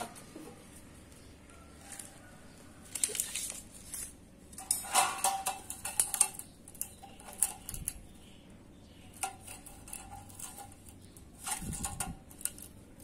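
Galvanized square hollow steel pipe being handled and shifted against other pipe offcuts: light metallic clinks and scrapes with a short ring, in several brief clusters.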